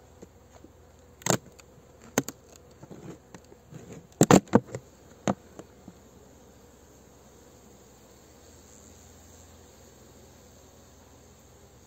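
Honeybees buzzing steadily around the hives. A handful of sharp knocks and clicks fall between about one and six seconds in, the loudest just after four seconds.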